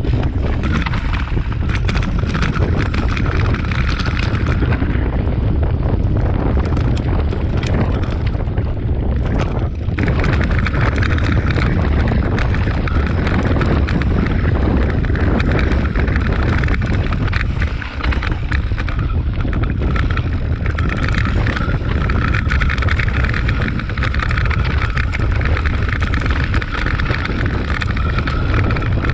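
Mountain bike descending a rough gravel trail at speed: steady wind noise on the microphone over the tyres rolling across loose stones and the bike rattling.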